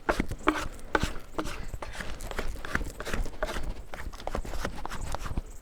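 Brioche dough being slapped and folded by hand against a work board, an irregular run of sticky slaps and squelches several times a second. Butter is being worked in, which has left the dough soft and sticky again.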